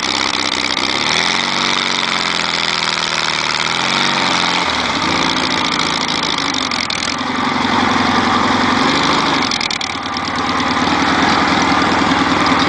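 Off-road buggy's engine running, its pitch climbing about a second in and dropping again around four to five seconds in, then holding fairly steady, with a loud noisy rattle over it.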